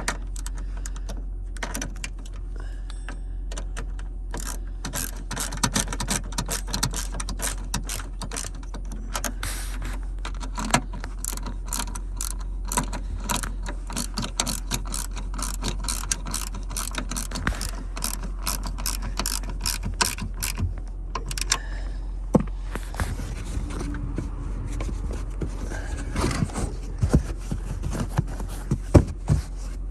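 Ratchet wrench clicking in rapid runs as bolts are tightened, with a short pause about two-thirds of the way through.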